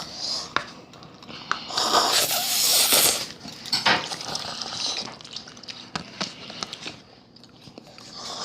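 Eating instant ramen: a loud noisy slurp of noodles lasting just over a second, about two seconds in, with short clicks of chopsticks against the bowl before and after.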